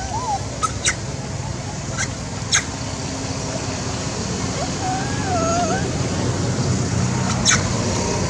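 A long-tailed macaque giving a thin, wavering whimper call twice: briefly right at the start and for about a second around five seconds in. A few sharp clicks fall between the calls, over steady background noise.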